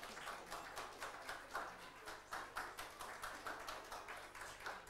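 Light applause from a small audience: many separate hand claps at an uneven pace.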